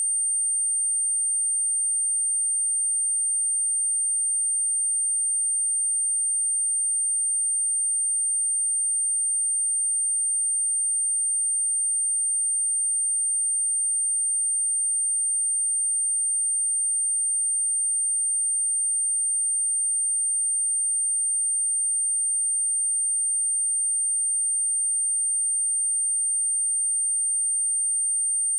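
A steady, unbroken high-pitched electronic sine-wave test tone at 8804 Hz: a single pure tone holding one pitch, of the kind played to test speakers or to shake water and dust out of a phone speaker.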